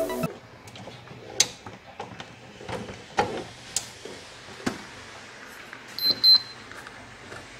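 Hard plastic clicks and knocks as power supply cables and connectors are handled and plugged into a power supply tester. About six seconds in come two short high beeps from the tester as it powers up to read the supply's voltages.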